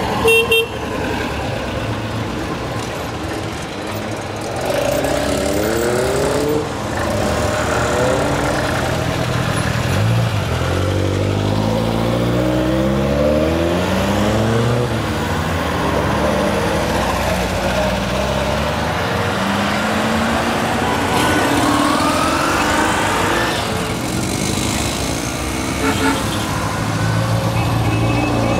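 A column of classic NSU cars (Sport Prinz and NSU 1000-type saloons) pulling away one after another, their small air-cooled rear engines rising in pitch again and again as each car accelerates past. A brief loud sound about half a second in.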